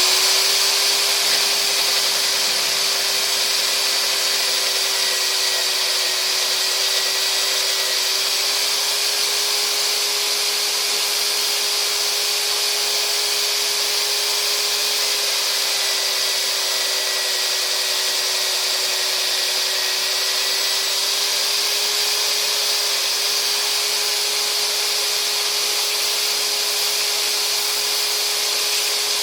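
Magnetic drill running steadily under load, a constant motor whine over a hiss, drilling out a stripped cylinder-head stud hole in a Ferguson TVO engine block ready for a Helicoil insert.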